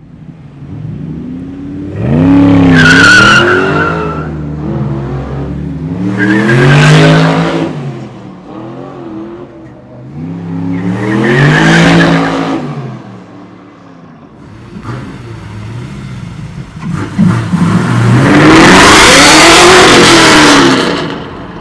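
Supercar engine revving and accelerating hard: four loud bursts, each rising in pitch and falling back, the last one longest.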